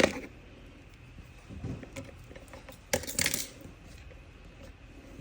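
Metal lock picks and tension tool clicking and clinking against a Medeco cam lock, with a sharp click at the start and a short cluster of clinks about three seconds in.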